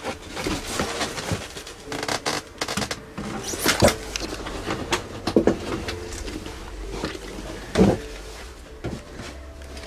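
Someone clambering up a cluttered staircase: footsteps and a string of irregular knocks, scrapes and bumps as boxes and wooden boards are brushed against and pushed aside. The two loudest thuds come about four and about eight seconds in.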